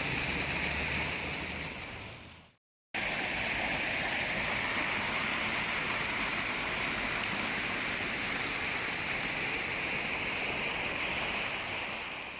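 Steady rushing of flowing water. It fades out about two seconds in, breaks off briefly, and starts again just as steadily.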